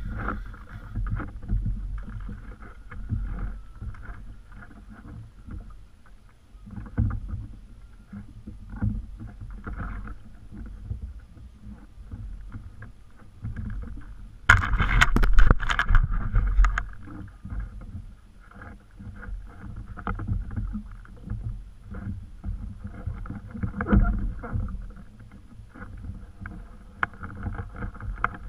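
Water lapping against a plastic fishing kayak's hull, with small knocks and bumps from the boat and its gear. About halfway through, a louder rough burst of rapid clicks lasts about two seconds.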